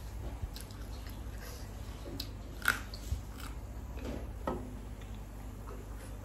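A person biting and chewing food close to the microphone, with a few short sharp clicks of bites and mouth noises, the loudest about two and a half seconds in, over a steady low hum.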